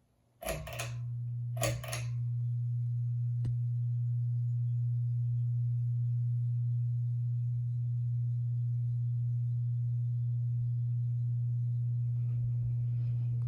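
52-inch Kichler Builder Premier ceiling fan's motor giving a loud, steady low buzz, the fault that makes this fan noisy. The buzz starts about half a second in with a sharp click, and a second click follows about a second later.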